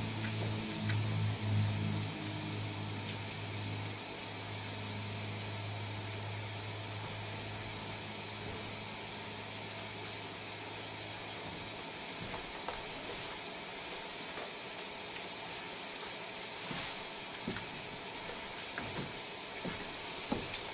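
Steady background hiss of room noise, with a low steady hum that stops about eleven seconds in, and a few faint knocks in the second half.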